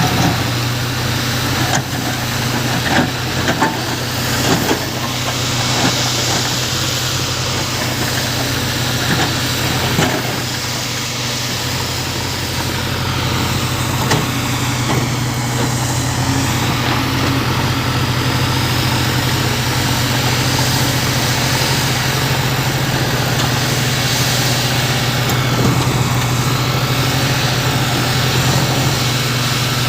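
JCB 3DX backhoe loader's diesel engine running steadily, with a few knocks in the first few seconds.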